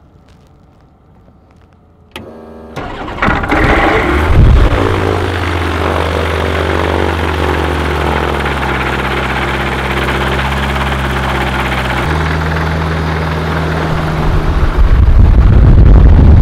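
Rotax 915 iS aircraft engine turned over by its electric starter about two seconds in, catching within a second and flaring up, then running steadily with the propeller turning. This is its first-ever cold start, made at about half throttle and then brought back. Its pitch steps down and back up with throttle changes, and it grows louder near the end.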